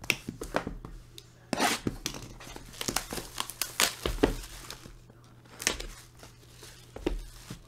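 Plastic shrink wrap being slit and torn off a sealed trading-card box, crinkling and crackling in irregular bursts as it is pulled away and crumpled in the hand.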